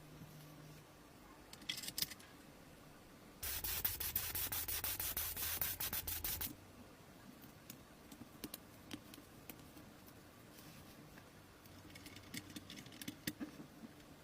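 A surface rubbed hard for about three seconds, a dense scraping noise, with scattered light clicks and taps before and after.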